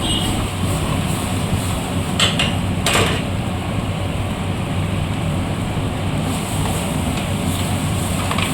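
Steady kitchen hum from the burner and fan of a restaurant cooking station, with two short metal clatters of a utensil against the cooking pot about two and three seconds in.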